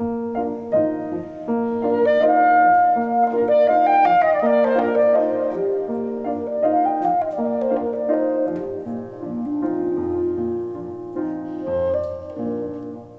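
A clarinet and a grand piano playing a classical duet together, the music starting abruptly.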